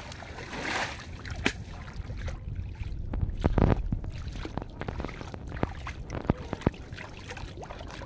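Shallow muddy water splashing and sloshing as people wade and work a fine-mesh net by hand to gather trapped shrimp, with scattered small clicks and knocks and a louder stretch of sloshing a little past the middle.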